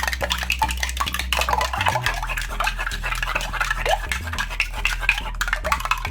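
Egg and milk being beaten together in a bowl with a utensil: quick, continuous clinking and scraping strokes against the bowl, over a faint low hum.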